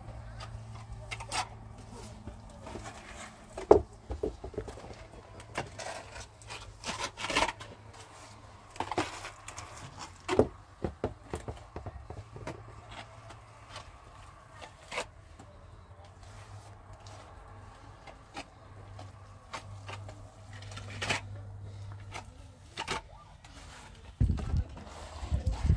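Steel plastering trowel scraping and tapping in irregular strokes as wet stone-powder plaster is spread onto a cinder-block wall, over a low steady hum. Near the end come heavier thumps of hands working wet plaster in a basin.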